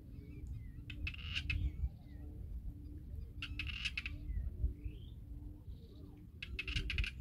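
Wild birds calling around a pond: a harsh, rasping call comes three times, about every two and a half to three seconds, with small chirps between. A low soft pulse repeats about twice a second throughout.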